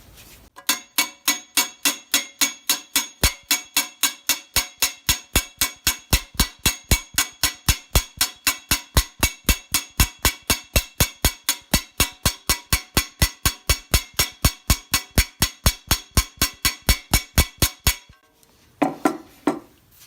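Hammer striking a rivet set to peen a rivet holding a lifting peg on a steel helmet visor, a steady run of about four ringing metal blows a second that stops a couple of seconds before the end.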